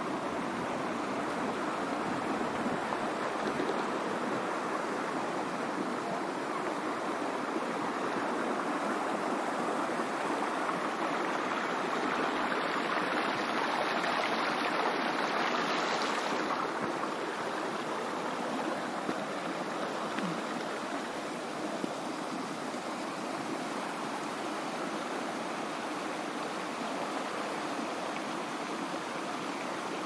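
Shallow river rushing steadily over stones, a little softer in the second half.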